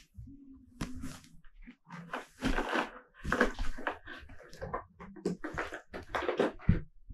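Tuxedo cat wrestling and bunny-kicking a sweatshirt on a fleece blanket: irregular bursts of scuffling and rustling fabric, along with the cat's own noises.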